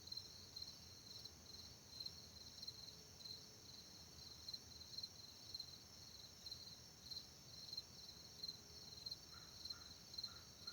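Crickets chirping in an even rhythm, about two to three chirps a second, over a steady high insect trill, with a faint low rumble underneath. A bird gives a few short calls near the end.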